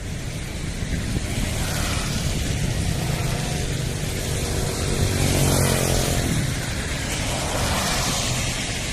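Road traffic with steady noise; a vehicle's engine draws near and passes in the middle, then fades.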